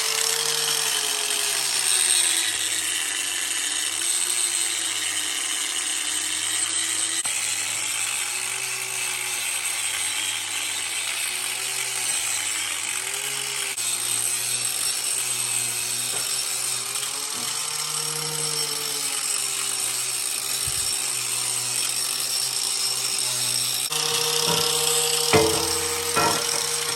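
Handheld power tool running steadily under load on a metal maul head, its motor pitch dipping and recovering as it is pressed in and eased off. Near the end the sound changes and a few sharp knocks are heard.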